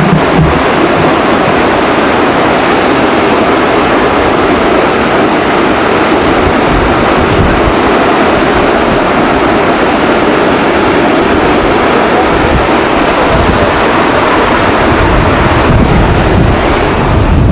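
Krimml Waterfalls: a large alpine waterfall's falling water making a loud, steady rushing noise, with a deeper rumble coming in near the end.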